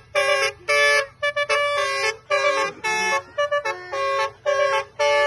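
Basuri telolet horn, a multi-tone musical vehicle horn, playing a tune in short, choppy blasts. Each blast sounds several horn notes together.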